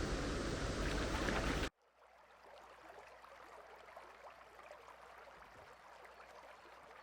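Mountain stream water rushing loudly, then cutting off abruptly under two seconds in to a much fainter, steady stream sound with light ticks of trickling water.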